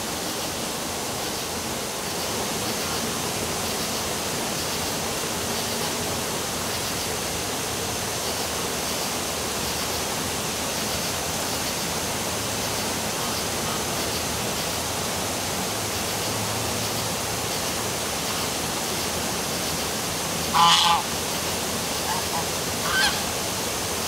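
Steady rush of a waterfall, with a goose giving a loud double honk near the end, followed a couple of seconds later by a shorter, quieter call.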